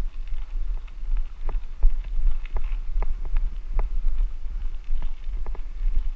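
Wind rumbling on a helmet-mounted camera as a bicycle rides a bumpy dirt track, with irregular clicks and knocks, several a second, as the bike and camera jolt over the ruts.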